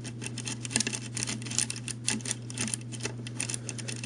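A Bogota rake being worked in the keyway of a five-pin Schlage pin-tumbler lock: rapid, irregular metallic clicking and scraping as the pick runs over the pins under tension from a tension wrench, over a steady low hum.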